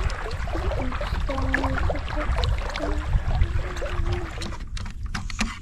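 Water lapping around a stand-up paddleboard, over a heavy low rumble, with small knocks and a few short low hums of voice.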